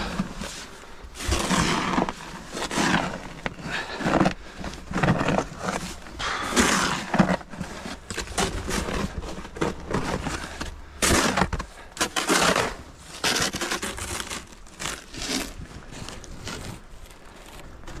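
Hand snow shovel scooping and pushing deep drifted snow, the blade scraping and crunching through it in repeated, irregular strokes, fading off near the end.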